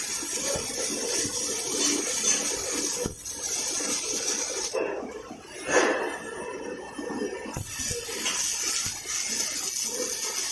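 Robotic arc welding: the welding arc hissing and crackling steadily, stopping for about three seconds in the middle before striking again.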